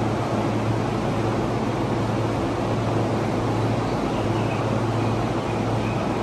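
E531 series electric train standing at the platform with its onboard equipment running: a steady low electrical hum under an even whir.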